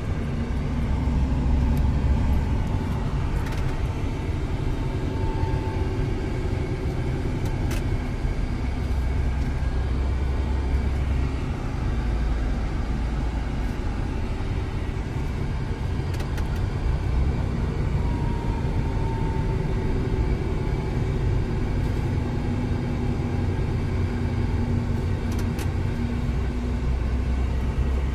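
Scania semi-truck driving, heard from inside the cab: a steady engine drone with tyre and road noise.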